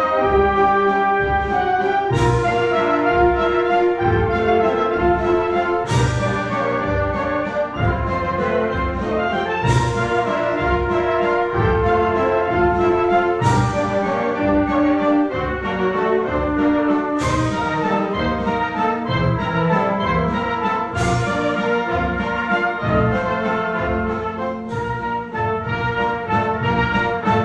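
Wind band playing a waltz: trumpets, saxophones and other winds carrying the melody over a steady bass-and-drum beat, with a cymbal crash about every four seconds.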